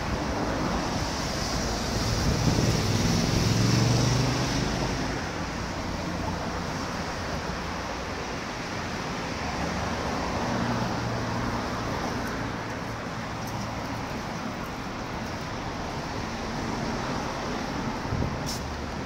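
Road traffic passing on a seaside avenue: steady traffic noise, with one vehicle passing loudly about two to four seconds in and a few sharp clicks near the end.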